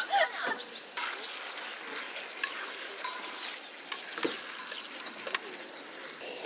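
Dakgalbi sizzling on a round griddle pan, with clicks and scrapes of a utensil stirring the chicken and cabbage. A few high whistled chirps sound in the first second.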